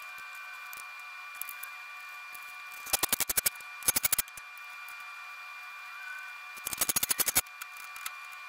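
Hand ratchet wrench clicking in three short runs of rapid, even clicks while oil pan hardware is worked at the bench.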